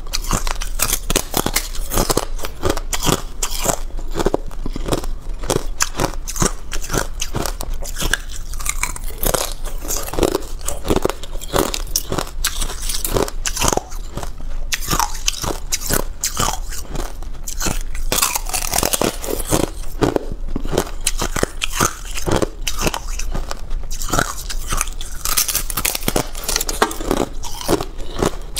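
Thin shards of balloon ice being bitten and chewed: a steady, dense stream of sharp cracks and crunches.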